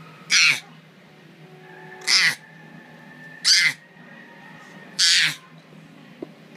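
A baby squealing four times in short, high-pitched shrieks about a second and a half apart.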